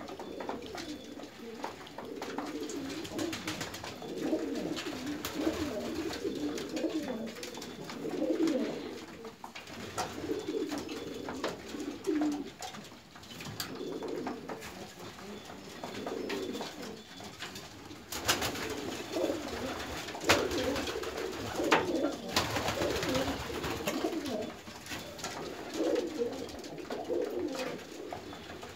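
Domestic pigeons cooing in a loft, several birds calling over one another in repeated warbling coos, with scattered sharp taps among them.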